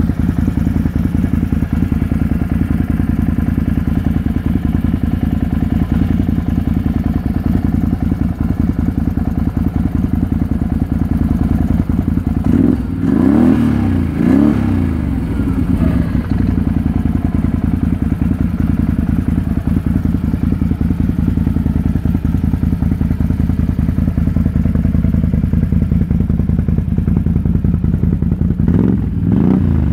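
Can-Am Renegade 650 XXC's Rotax V-twin idling through a Yoshimura exhaust, revved up and back down twice in quick succession about halfway through and once more near the end.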